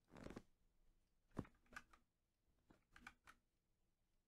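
Near silence in a small room, broken by a few faint, short clicks and taps. The loudest comes a little over a second in.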